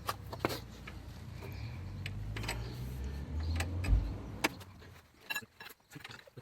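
Scattered metallic clicks and knocks of hand tools working on a car's front strut mounting bolts, with the loudest knock just before four seconds in. A low rumble underneath fades out after about four and a half seconds.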